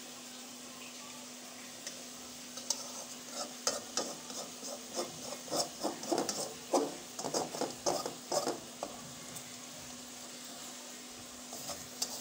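Prawns frying in oil in a metal wok: a steady sizzle with a faint hum underneath. From about two and a half seconds in until about nine seconds, and again near the end, there is an irregular run of sharp clicks and knocks.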